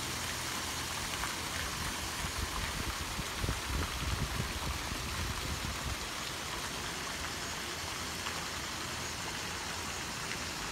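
Steady rushing hiss of fountain water falling in the gardens below, with a low buffeting between about two and six seconds in.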